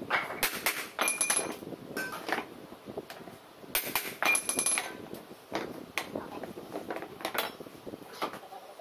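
Hammer blows on a steel punch against the yoke of a propeller shaft, seating a new universal joint (cross joint). The metal strikes ring and come in several quick bursts, with lighter taps in between.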